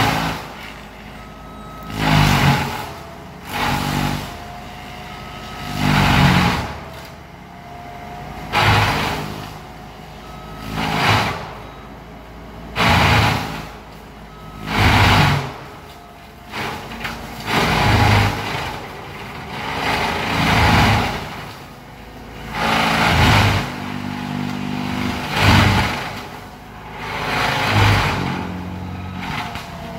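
Alpha Wolf XP mulcher running steadily with a loud, noisy burst about every two to two and a half seconds as it cuts into brush. The engine note bends under each burst.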